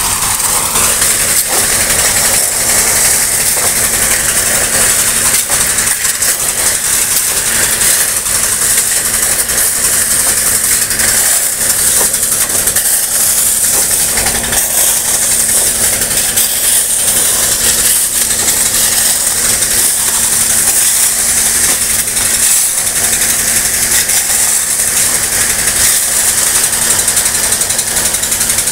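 Wet river gravel and water pouring steadily from a chute into a dump truck's bed, a continuous rattling rush, over the steady hum of the loading machine's engine.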